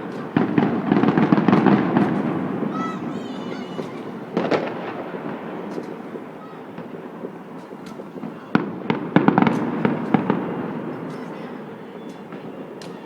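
Fireworks bursting: clusters of sharp bangs and crackles, each trailing off in an echoing rumble. They are busiest in the first two seconds and again around nine to ten seconds in.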